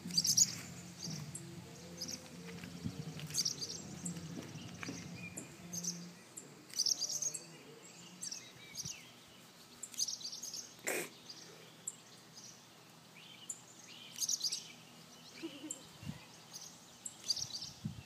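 Purple martins giving short, high, sharp alarm calls, singly or in quick pairs every second or two, as they mob and dive at a cat.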